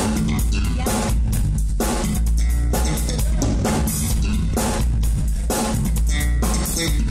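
Electric bass guitar solo played live and amplified, with a drum kit playing along; loud, with a heavy low end.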